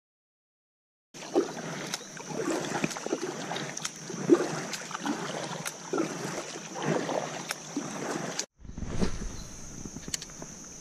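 A kayak paddle dipping and pulling through calm river water, starting about a second in, with a splash and drip about once a second and the odd knock of the paddle shaft, over a steady high whine. Near the end a single dull thump against the hull, followed by quieter handling of fishing tackle in the kayak.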